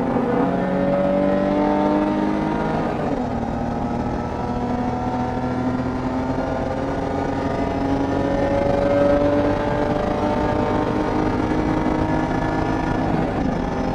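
BMW E30 325is race car's straight-six engine pulling hard, its pitch climbing, dropping sharply about three seconds in at an upshift, then climbing slowly again for several seconds.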